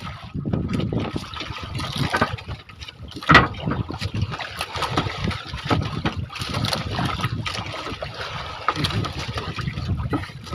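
Sea water splashing and lapping against a small bamboo-outrigger fishing boat on choppy water, with scattered knocks from the boat and one sharp knock about three seconds in.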